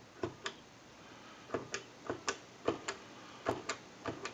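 Mickey Mouse telephone's dial keys clicking as a number is dialed, a sharp click pair, press and release, every half second or so.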